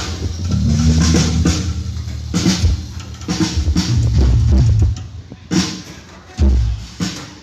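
Music with a drum kit and heavy bass through a large concert PA system: kick and snare strokes with deep bass notes, which drop away about five seconds in before a single heavy low hit.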